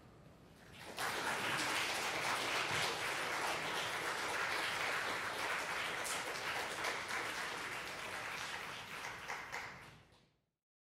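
Audience applause breaking out about a second in and holding steady, then fading out quickly near the end.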